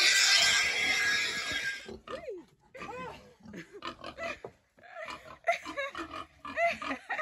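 A boar squealing loudly for about two seconds, then a string of short squeals and grunts that rise and fall in pitch, as it is driven out of its pen.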